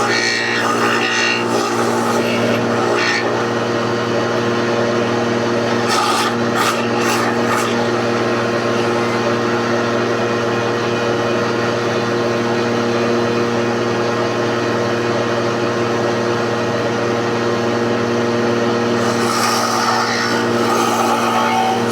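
Electric hand planer running steadily, its motor holding one constant pitch while the blades cut into wood with a rasping noise, with a few sharper rasps around six to seven seconds in and again near the end.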